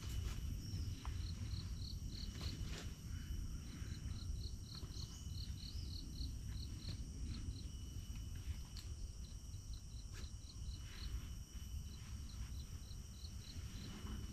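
Rainforest insects: a steady high-pitched drone at several pitches, with a series of short chirps repeated about three times a second in runs of a few seconds each.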